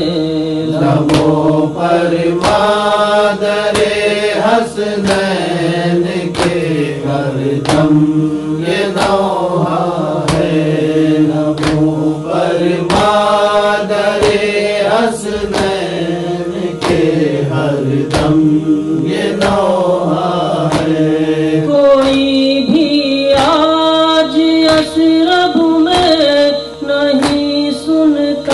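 Wordless chanting by voices in a noha interlude, long held vocal lines over a steady drone, with a regular beat.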